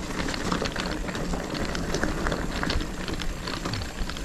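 Mountain bike being ridden over rough trail ground: tyres crunching on stones and dirt, with many quick knocks and rattles from the bike.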